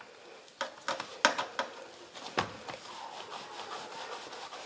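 Hands working stiff chakli dough on a steel plate: a few light knocks in the first two and a half seconds, then soft steady rubbing.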